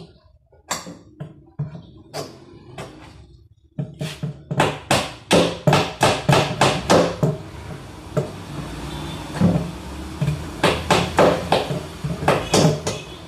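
A hammer driving nails into plywood shelving. There are a few separate blows, then a quick run of about a dozen strikes at three or four a second, a pause, and another run of strikes near the end.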